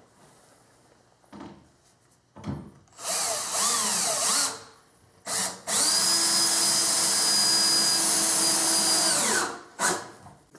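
Cordless drill driving a wood screw with a Phillips bit through a plywood top into the cabinet's side: a short burst with the motor speeding up and slowing, then a steady run of about four seconds that winds down as the screw seats. The bit holds in the screw head without spinning out.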